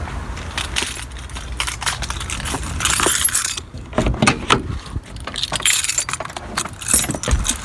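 A bunch of keys jangling and clinking in irregular bursts, with light clicks and knocks as they are handled.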